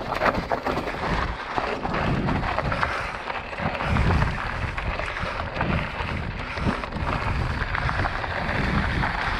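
Mountain bike rolling down a loose, rocky dirt trail: a steady rush of tyre and wind noise broken by frequent rattles and knocks as the bike runs over stones.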